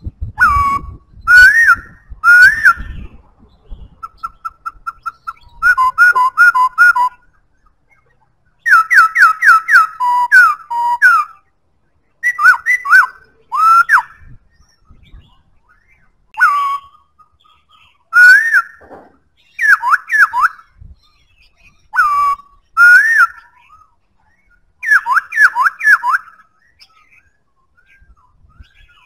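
Black-throated laughingthrush (khướu bạc má) singing: loud, clear whistled phrases of notes sliding up and down, delivered in bursts with short pauses between them. About four seconds in there is a soft, rapid trill of short notes.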